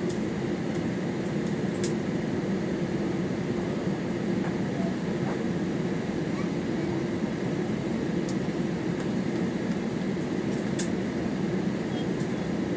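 Steady cabin hum of a jet airliner taxiing with its engines running, heard from inside the cabin, with two light clicks.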